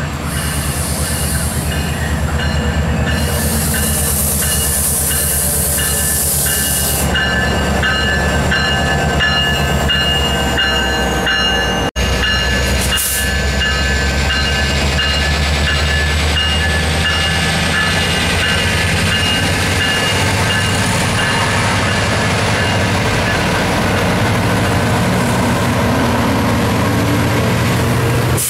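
Virginia Railway Express MP36PH-3C diesel locomotive passing at close range as its commuter train pulls into the station, the engine running with a steady low drone. High steady squealing tones ride over it for the first half, then the passenger cars roll by.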